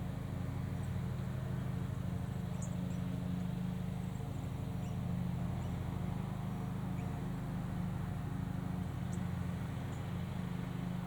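Lawnmower engine running steadily at a distance, a constant low hum, with a few faint bird chirps over it.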